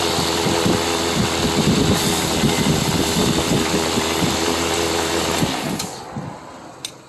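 Wood lathe running with a steady mechanical hum as it spins the turned workpiece. About five and a half seconds in the drive cuts and the sound dies away, as a hand grips and stops the piece.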